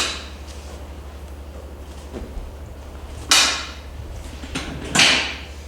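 Two short swishes of hands sliding over the body during soft-tissue massage, about a second and a half apart, over a steady low electrical hum.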